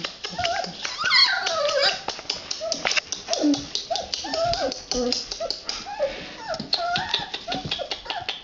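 Young red standard poodle puppy whimpering and squeaking in a string of short high whines, with one long falling squeal about a second in. Soft clicks and rustling run underneath.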